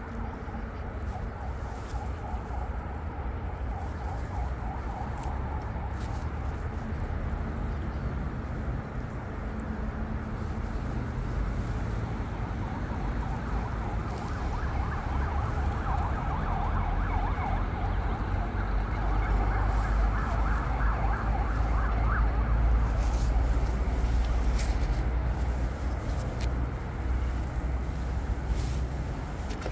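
A siren wails, growing louder through the middle and easing off near the end, over a steady low rumble.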